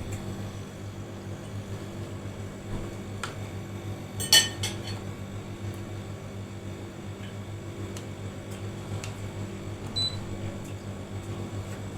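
Arçelik ProSmart inverter refrigerator humming steadily, with a few light clinks of glass or utensils, the sharpest about four seconds in.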